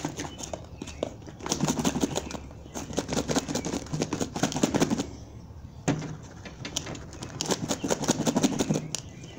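A plastic food container of raw shrimp, minced garlic and anise seed shaken hard by hand, its contents and snap-lock lid rattling and knocking in two rounds of rapid shaking, with a short pause about halfway.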